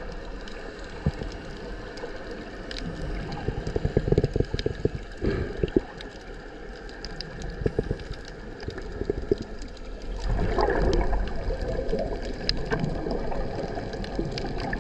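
Underwater sound picked up by a GoPro action camera in its waterproof housing: muffled sloshing and gurgling water with scattered clicks and knocks. A louder rush of water starts about ten seconds in.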